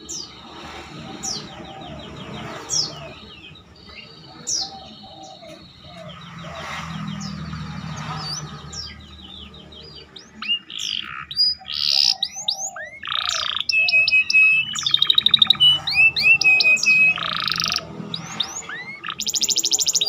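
Domestic canary singing a varied song of rapid trills, rising whistles and buzzy notes, with phrases of bar-winged prinia (ciblek) song worked in. The song grows much louder about halfway through and ends on a fast, high trill.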